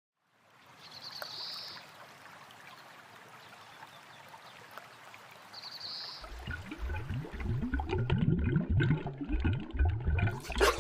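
River water flowing, with two short high bird trills in the first half. From about six seconds in, a louder close-up gurgling and splashing of water sets in.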